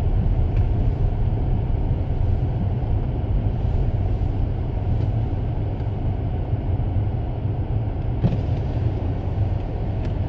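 Steady low rumble of a car's engine and tyres heard inside the cabin while driving slowly over snow, with one short click about eight seconds in.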